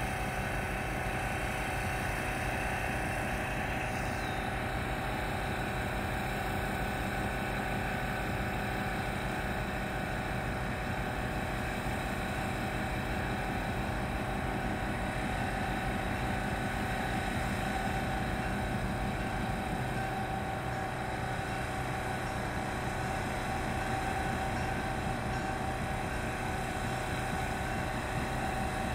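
Illinois Central Gulf GP8 diesel locomotive's engine running with a steady drone and hum as the locomotive slowly approaches.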